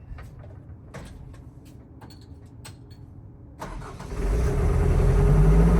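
A few light clicks, then about three and a half seconds in the 1992 CAT E120B excavator's diesel engine starts and settles into a loud, steady run. The engine catches even though its fuel system will not hold a good prime.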